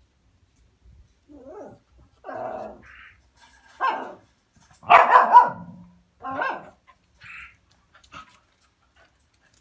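A dog barking at the sight of a cat: about seven irregular barks, the loudest about five seconds in.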